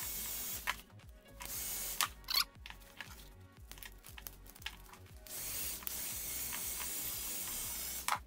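Heat gun blowing with a steady hiss, stopping within the first second as it shrinks PVC wrap onto a battery pack. Then scissors cut the shrink wrap with a few sharp clicks, and the heat gun runs again from about five seconds in until just before the end.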